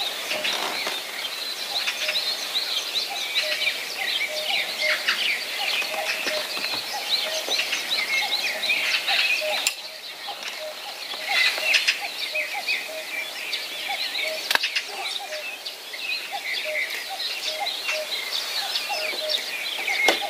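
Outdoor chorus of many birds chirping and calling, with a short lower note repeating about once or twice a second beneath it. The sound drops abruptly just before ten seconds in, then carries on.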